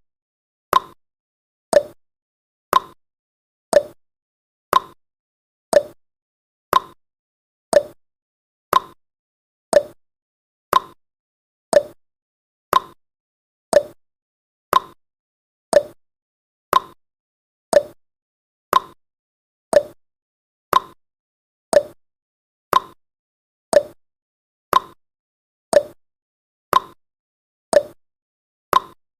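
Clock tick-tock sound effect of a countdown timer: one sharp tick each second, alternating between a higher and a lower note, with silence between ticks.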